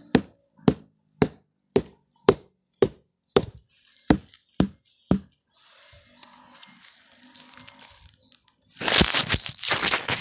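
Sugar-palm flower stalk (manggar) being beaten on its first beating, to bring on the sap for tapping: about ten sharp, evenly spaced knocks, roughly two a second, that stop a little past halfway. Near the end comes a loud stretch of rustling and crackling.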